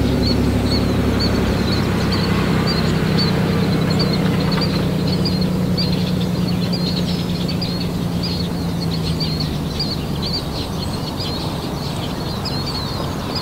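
Many birds chirping rapidly over a low, steady motor hum that slowly fades over about ten seconds, the sound of a small motorboat's outboard running along the channel.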